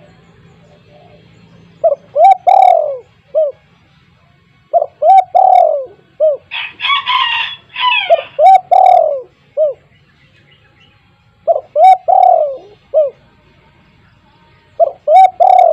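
Spotted dove (tekukur) cooing: five phrases of a few short, hooting coo notes each, a couple of seconds apart. A loud, harsh, noisy burst of about a second and a half comes between the second and third phrases.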